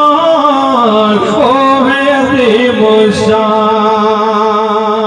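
A man singing an Urdu naat into a microphone and loudspeakers with echo: a drawn-out wordless melismatic phrase whose pitch winds up and down, then settles into a long held note.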